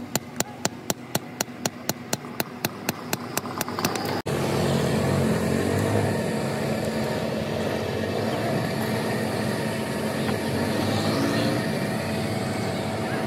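Rapid hand-hammer blows on a sickle blade over a steel anvil, about four a second. A little over four seconds in, the sound cuts to a steady mechanical hum.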